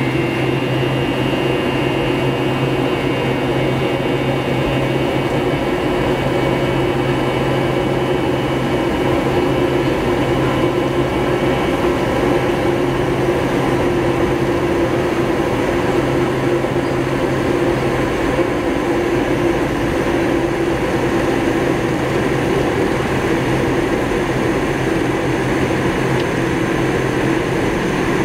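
Jet engine noise heard inside the cabin of a McDonnell Douglas DC-9-51 on its takeoff roll: the rear-mounted Pratt & Whitney JT8D turbofans give a loud, steady roar with a high whine that fades about twelve seconds in.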